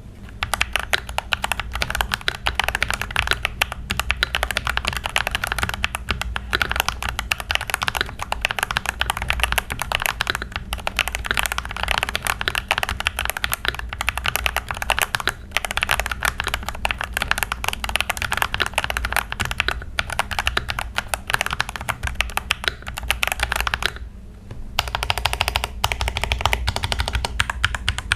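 Fast continuous typing on a tape-modded Monka A87 mechanical keyboard, dense key clacks with a brief pause about 24 seconds in before the typing resumes. A steady low hum lies underneath.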